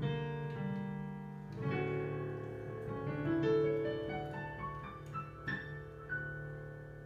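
Digital piano playing the closing bars of a pop ballad medley: a held chord, a new chord about a second and a half in, then single notes climbing upward to a last high note that rings and fades out.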